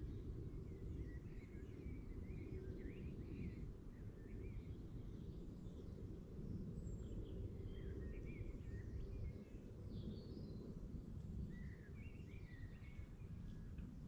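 Wild birds singing and chirping in short, scattered phrases over a steady low rumble.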